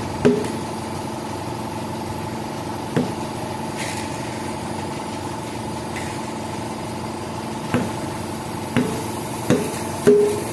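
Hammer blows on a freshly mounted, inflated motorcycle rear tire, six sharp ringing knocks at uneven intervals and bunching up near the end, struck to seat the bead where soap bubbles show air leaking. A steady machine hum runs beneath.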